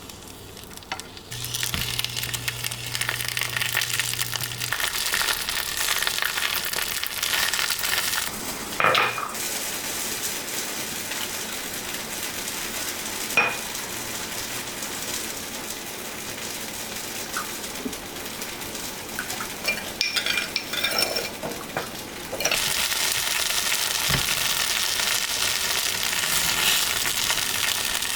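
Food sizzling in a frying pan as it is stirred, with a few sharp clinks of a utensil against the pan. The sizzle starts about a second in and grows louder about 22 seconds in.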